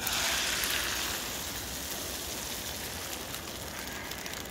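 Three whisked eggs poured into a hot frying pan, sizzling. The sizzle starts suddenly and is loudest in the first second, then eases to a steadier, quieter sizzle.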